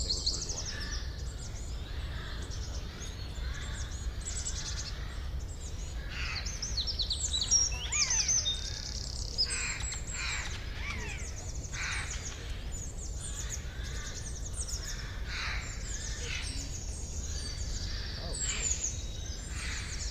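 Several birds chirping and singing at once in a busy forest chorus of quick trills and twitters, over a low steady background rumble.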